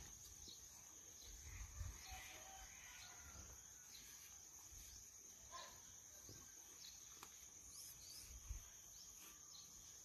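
Quiet rural ambience: a steady high-pitched insect drone with scattered faint bird chirps and a few soft low rumbles of wind on the microphone.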